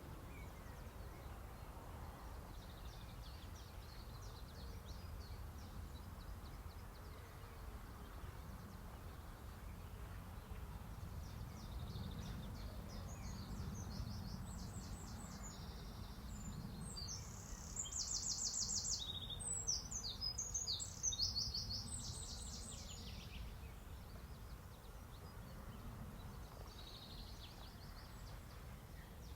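Small songbirds singing and chirping in high, rapid notes over a steady low background rumble. A louder run of quick repeated chirps comes about two-thirds of the way through.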